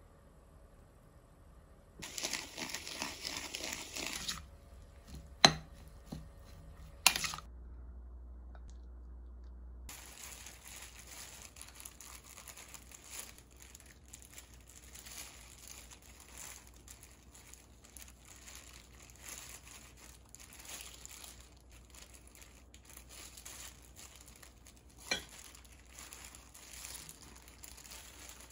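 Hands in disposable plastic gloves crinkling and rustling while laying fillings onto seaweed on a bamboo kimbap rolling mat. There is a louder burst of rustling a few seconds in, and a few sharp taps and knocks.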